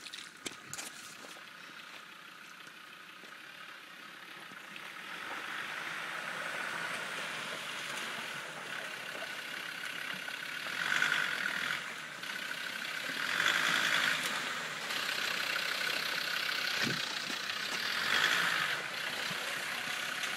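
Land Rover Defender 90's Td5 five-cylinder turbodiesel running, growing steadily louder from about four seconds in and swelling three times in the second half.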